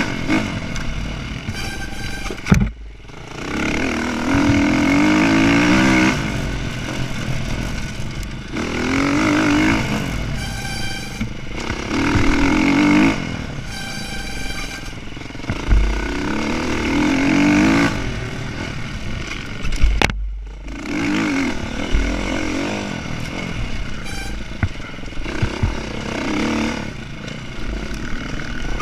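Dirt bike engine under hard riding on a trail, revving up and easing off over and over as the rider works the throttle and gears. A sharp knock comes about two and a half seconds in and again around twenty seconds in, each followed by a brief drop in engine sound.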